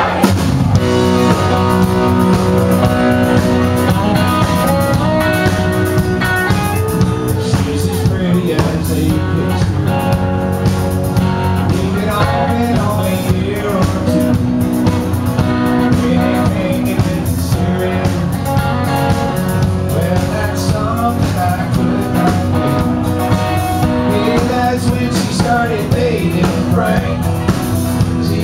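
Live country-rock band playing a song: electric and acoustic guitars, bass and drum kit, with a man singing lead into the microphone.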